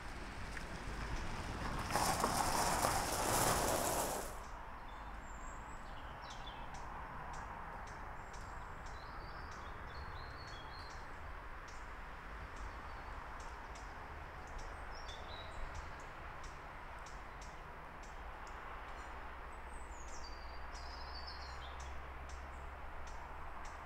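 Quiet outdoor ambience with small birds chirping in short high calls over a steady low hum. About two seconds in, a loud rushing noise lasts around two seconds and then stops.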